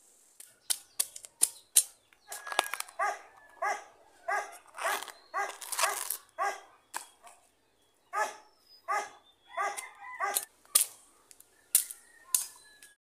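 A dog barking over and over, roughly one to two barks a second with a short break midway. Sharp knocks, the loudest sounds, come in a quick run at the start and a few more near the end: a knife hacking the husk off a bamboo shoot. Everything cuts off suddenly just before the end.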